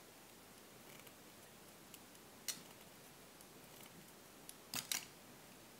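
Faint, sharp clicks of needle-nose pliers working wire, bending and twisting it: a click about two and a half seconds in and a quick pair near the end, over a low hiss.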